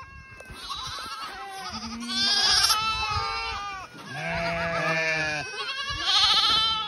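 A pen of goat kids bleating, several calling at once in overlapping, quavering bleats, with louder bursts of calls a couple of seconds in and again in the second half.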